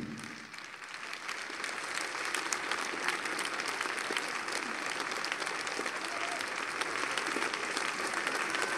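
An audience applauding, building up over the first two seconds and then holding steady.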